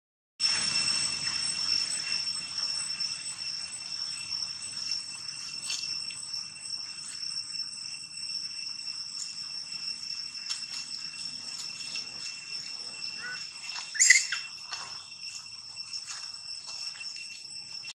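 Insects buzzing steadily in a high-pitched, even drone. A brief loud chirping call cuts in about three-quarters of the way through.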